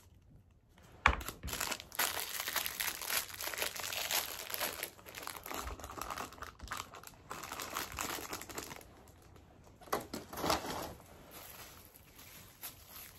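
A small plastic packet crinkling and tearing as it is handled and opened, starting with a sharp crackle about a second in and going on in spells, with another short spell near the end.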